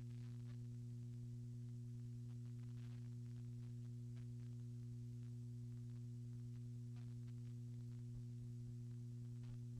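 Steady low electrical hum, several even tones stacked one above another, with a few faint scattered ticks.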